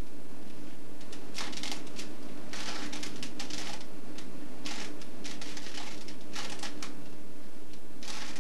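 Plastic Rubik's cube being twisted by hand: short bursts of clicking, rattling turns, some single and some in quick runs, with pauses between them. A steady low hum sits underneath.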